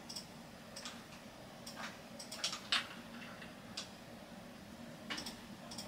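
Irregular clicks of a computer mouse and keyboard keys, unevenly spaced and sometimes in quick pairs, over a low steady hum.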